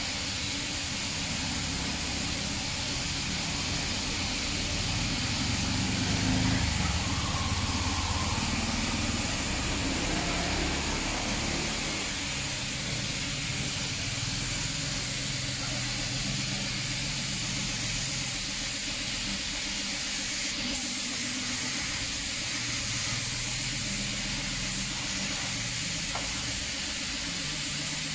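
Gravity-feed air spray gun hissing steadily as compressed air atomises finish onto a wooden armchair, with a low rumble underneath that swells a little between about six and eleven seconds in.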